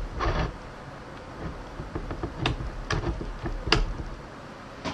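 Router table being set up with the router switched off: a series of sharp clicks and knocks with a low rumble as the router bit is set and raised up through the table plate.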